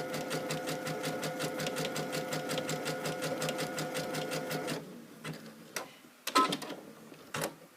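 Electric sewing machine running a zigzag stitch at a steady pace, a rapid even needle rhythm over a steady motor whine, stopping about five seconds in. A few scattered clicks and knocks follow.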